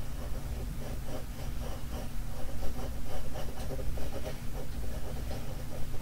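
Pencil scratching on drawing paper in short, irregular sketching strokes, over a steady low hum.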